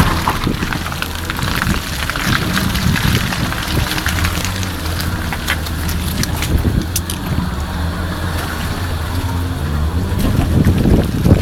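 An off-road 4x4's engine running at low revs, its pitch stepping up and down, with scattered clicks and knocks throughout. The engine gets louder near the end.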